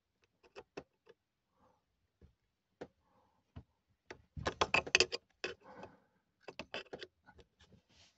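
Scattered light metal clicks and knocks, with a quick run of louder rattling clicks about four and a half to five and a half seconds in: a flathead screwdriver working the quarter-turn isolation valves on the copper supply pipes under a sink.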